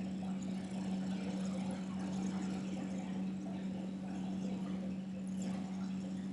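Steady low hum, one unchanging tone, over a faint even hiss.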